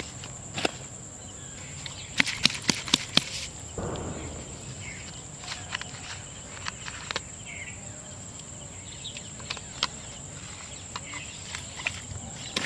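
A steady high-pitched insect drone, with scattered sharp clicks and crackles of plastic bottles being handled: a quick run of clicks about two seconds in and a brief rush of sound about four seconds in.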